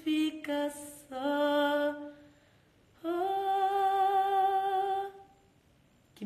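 A woman singing a cappella: two short phrases, then one long held note from about three seconds in that fades away about two seconds later.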